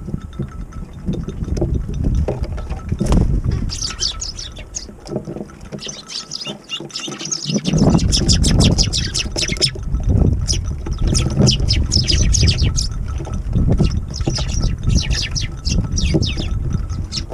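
Eurasian tree sparrows chirping in quick runs of short, high notes, over strong wind buffeting the microphone with a gusting rumble that grows louder about halfway through.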